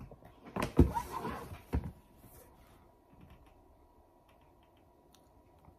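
Handling noise from a tablet being lowered and set down on a desk: a few knocks and rustles in the first two seconds, the loudest knock about a second in. After that there is only faint room tone with a few small clicks.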